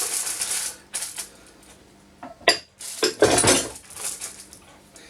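Kitchen clatter as white mushrooms are tipped into the stew pot: a rustling tumble at first, then light clicks, a sharp ringing clink about two and a half seconds in, and the loudest clatter of dishes just after three seconds.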